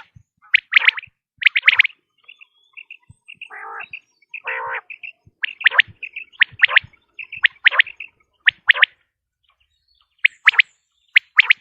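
Common quail calling over and over in short, sharp notes, mostly in quick groups of two or three. A few seconds in come two harsher, buzzy calls among a run of faint high chirps. The calls pause briefly near the end.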